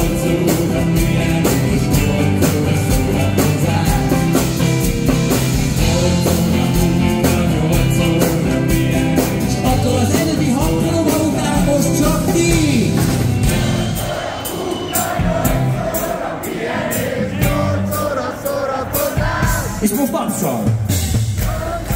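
Live rock band with electric guitar, bass and drums playing loudly. About fourteen seconds in, the bass and drums drop out, leaving the crowd singing along over a steady clap about twice a second.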